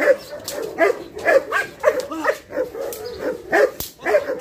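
Dogs barking and yipping in quick succession: about a dozen short, high calls, two or three a second, with a sharp click near the end.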